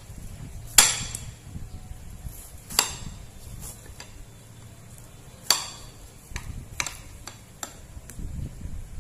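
Kitchen cleaver chopping through watermelon, the blade striking the plate beneath: three sharp knocks, then a few lighter taps.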